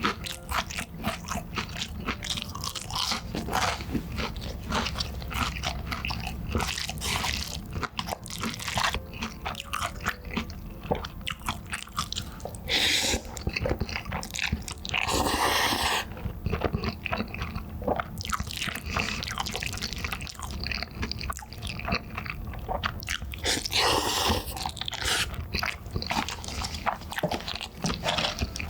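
Close-miked biting and chewing of Chicago-style deep-dish cheese and meatball pizza: a dense run of short mouth clicks and smacks, with a few longer, louder bites partway through.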